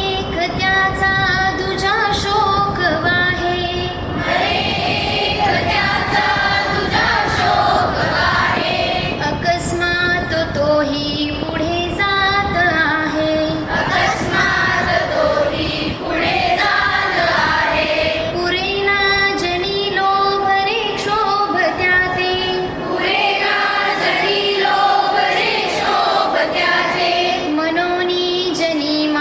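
A group of children singing a melodic song together in unison, with held and gliding notes.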